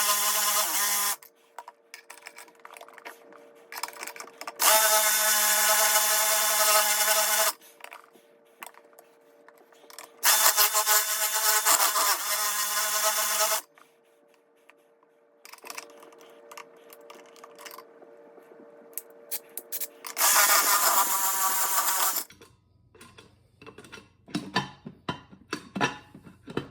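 Electric drill drilling out a jammed vending machine lock, running in four bursts of a few seconds each with pauses between. Quieter scraping and clicks fill the pauses.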